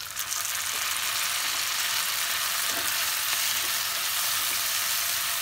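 Freshly added chopped tomatoes sizzling steadily and loudly in hot oil with fried onion, garlic and ginger in a nonstick kadai, stirred in with a spatula. The sizzle jumps up right at the start as the wet tomatoes meet the oil.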